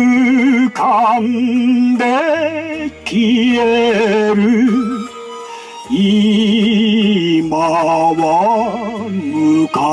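A man singing an enka ballad with heavy vibrato over a karaoke backing track.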